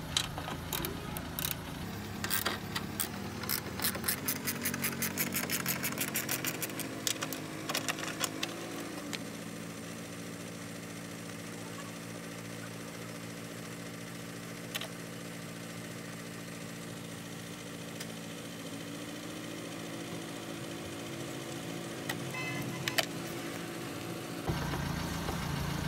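Ratchet wrench clicking in quick runs as the two 10 mm bolts holding the air filter housing are undone, over a steady low hum.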